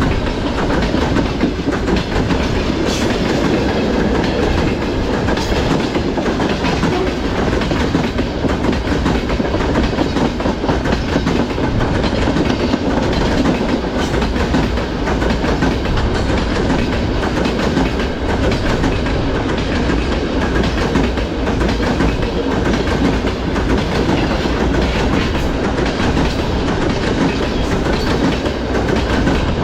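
Freight train of gondola cars rolling past, the wheels clattering steadily over the rail joints in a continuous rumble.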